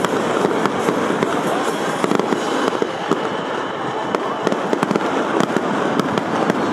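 Fireworks going off in rapid succession: a dense, continuous crackle of sharp pops and bangs.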